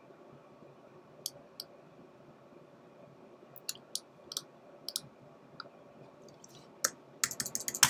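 Single clicks from a computer mouse, spaced out at first, then a quick flurry of clicks near the end, over faint room hiss.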